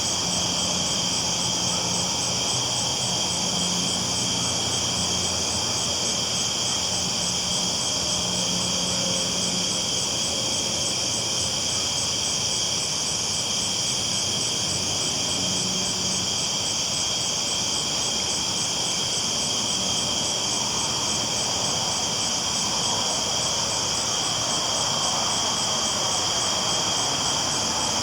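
Train rolling along the tracks at night, a low steady rumble that fades out about halfway through, under a constant high-pitched hiss and fine chirring.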